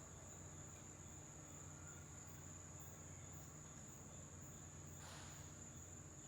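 Near silence: room tone with a steady high-pitched whine and a faint low hum, and a brief soft rustle about five seconds in.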